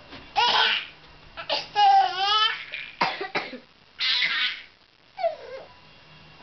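Baby laughing hard in separate breathy, gasping bursts, with a run of quick pitched laughs about two seconds in; the laughter is so hard that it comes close to sounding like crying.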